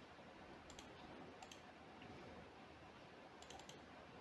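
Faint computer mouse clicks over near-silent room tone: two quick double clicks in the first second and a half, then a short run of about four clicks near the end.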